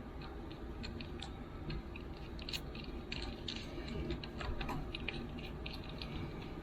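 Irregular light clicks and rattles of hands handling cables and small parts, over a steady low rumble.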